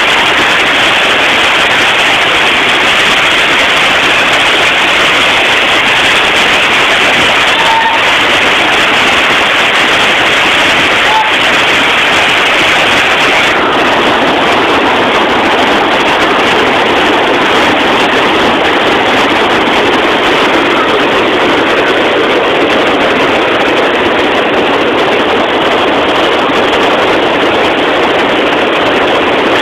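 Loud, steady roar of a river in flood: fast, muddy floodwater churning through standing waves around bridge piers.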